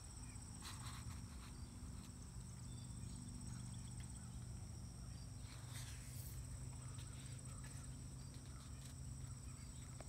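Faint crickets chirring steadily, with a low steady hum beneath and soft paper rustles as a picture book's pages are handled and turned.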